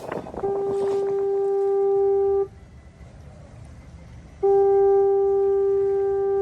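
Boat horn sounding two long, steady blasts of about two seconds each, about two seconds apart, on one fairly high pitch.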